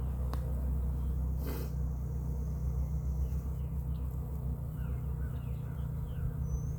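Steady low hum of a mass of Carniolan honey bees from an open package. Small birds chirp in short falling notes over it, and there is a brief rustle about a second and a half in.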